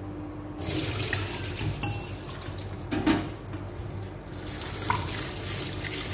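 Tap water running into a sink over sliced pig kidneys in a stainless mesh strainer, starting about half a second in. A knock sounds about halfway through.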